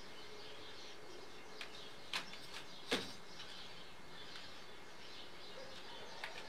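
Birds chirping faintly in the background, with two sharp knocks about two and three seconds in, the second the louder.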